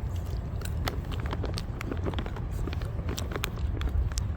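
Footsteps and small scuffs, heard as many irregular clicks, over a steady low rumble.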